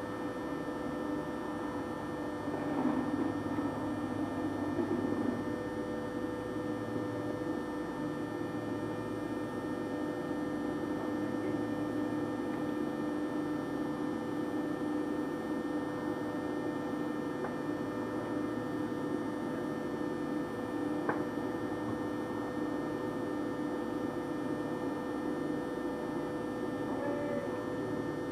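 A steady hum made of several fixed tones over a light background hiss, with one faint click about twenty-one seconds in.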